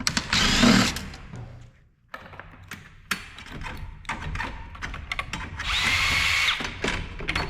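Cordless drill/driver backing out screws in two short runs, one at the start and one lasting about a second near the end, with light clicks and rattling of loose parts between.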